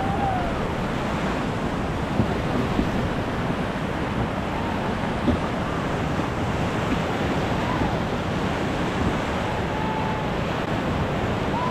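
River whitewater rushing and churning around a raft just below a big rapid: a steady, loud rush of water.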